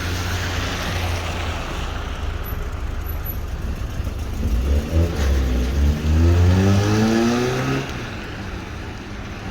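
A car engine accelerating, rising steadily in pitch for about three seconds in the middle, over a steady background hiss.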